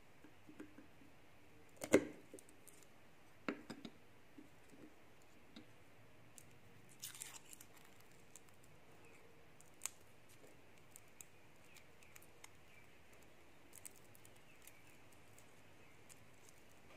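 Garlic clove being peeled by hand, its papery skin giving faint crackles and small ticks. A sharp knock about two seconds in is the loudest sound, with a second one about a second and a half later.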